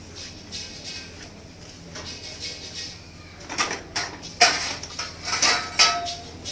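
Steel tube and the iron rollers and screw of a hand-operated three-roll pipe bender clanking: about five sharp metal knocks in the second half, some ringing briefly. A steady low hum runs underneath, with faint high squeaks early on.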